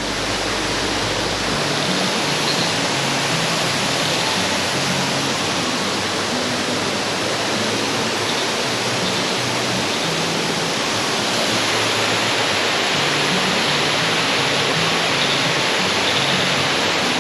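Waterfall water rushing and splashing over granite rocks, a steady loud hiss.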